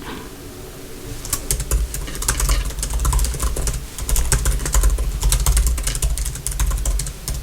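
Fast typing on a computer keyboard: a dense run of quick key clicks that starts about a second in.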